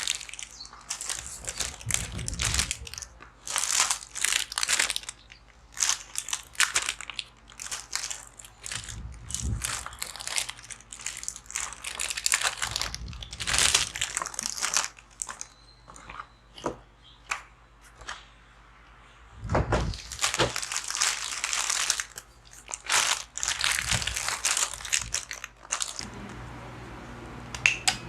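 Plastic and paper packaging of a model kit crinkling and rustling as it is handled and opened, in irregular bursts, with a quieter lull a little past halfway.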